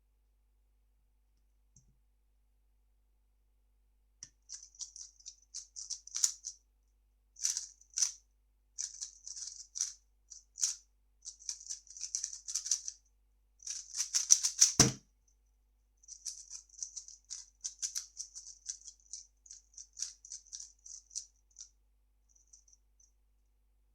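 3x3 speedcube being turned fast: a rapid plastic clicking and clatter of layers turning, in bursts with short pauses, and a single sharp knock about fifteen seconds in.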